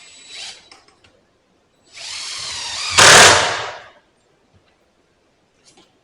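Power drill running in two goes, a short burst at the start and then about two seconds of motor whine driving into wood, loudest near the end before it stops.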